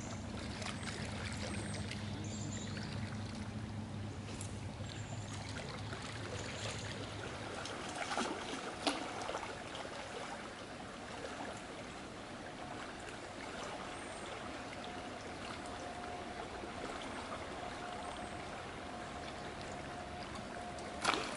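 River current flowing steadily, an even rushing of water. A few sharp clicks or knocks stand out about eight to nine seconds in and again near the end.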